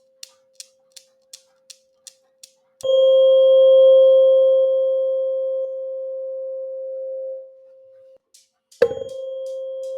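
Sharp ticks at just under three a second over a faint steady 528 Hz healing tone. About three seconds in, the tone is struck loudly and rings on, fading until it stops about eight seconds in. It is struck again near nine seconds and rings steadily.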